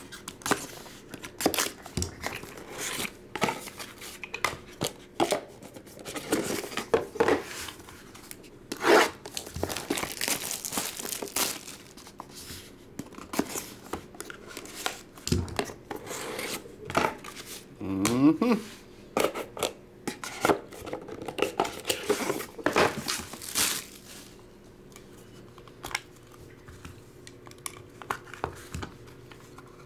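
Plastic shrink wrap crinkling and tearing off a cardboard trading-card box, then the box being slit open with a knife, in irregular crackles and scrapes with a brief squeak. It goes much quieter for the last few seconds.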